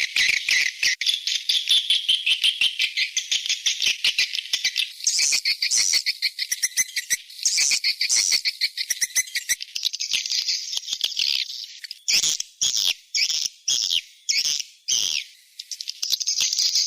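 Swiftlet lure call, played to draw swiftlets into a swiftlet house: dense, fast, high-pitched twittering chirps. About twelve seconds in, the chirps break into separate short bursts with brief gaps, then run dense again near the end.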